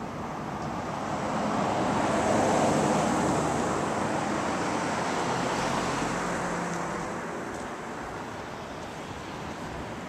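A car passing by, its noise swelling to a peak about two to three seconds in and fading away by about seven seconds in.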